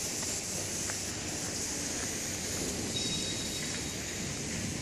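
Steady outdoor background noise, an even hiss with no distinct event, and a faint brief high tone about three seconds in.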